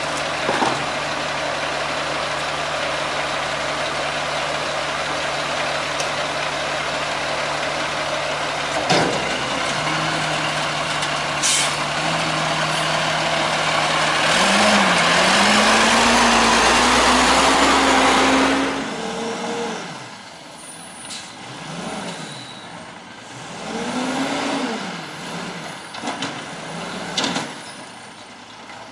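Peterbilt 320 garbage truck's diesel engine idling steadily, with a few knocks as cans are tipped into its front-loader container. It then revs up, climbing in pitch, and runs loud for several seconds as the Maxon arms hydraulically raise the container. After a sudden drop in level, a more distant White GMC Amrep side-loader garbage truck is heard revving up and down as it moves, with a few faint high squeals.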